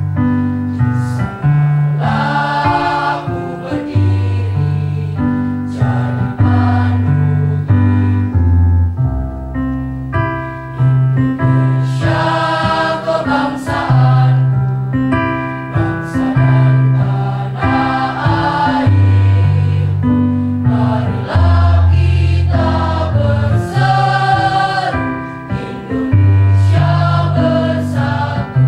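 Girls' choir singing a march-like anthem in unison and parts, over keyboard accompaniment that holds low chords.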